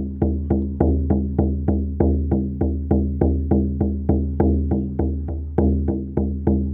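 Vegan shamanic frame drum, Lakota style, 40 cm across with a non-animal head, beaten in a steady even rhythm of about three strokes a second. Each stroke gives a deep tone that rings on into the next.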